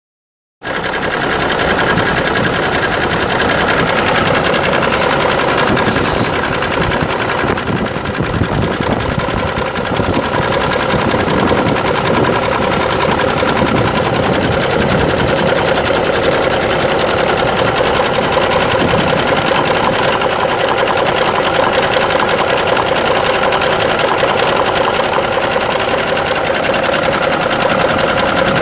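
Cummins NTC 14-litre inline-six turbo diesel in a 1987 Freightliner semi idling steadily with a loud, rapid diesel clatter, starting abruptly about half a second in. A brief hiss about six seconds in.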